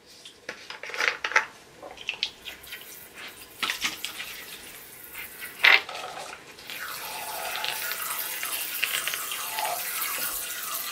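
Scattered clicks and rustles of handling, then from about seven seconds in a steady hiss of contact lens solution being poured from its bottle into the glue mixture to activate the slime.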